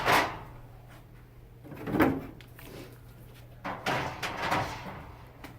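Knocks and rattles of drink bottles and cans being handled and loaded into a combo vending machine: a knock at the start, another about two seconds in, and a longer clatter around four seconds.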